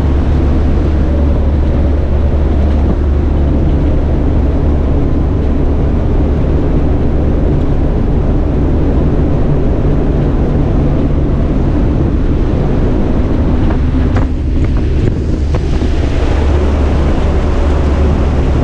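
Loud, steady drone of a military transport aircraft's engines heard inside its cargo cabin, with a deep low hum under a rushing-air noise; it dips briefly about fourteen seconds in.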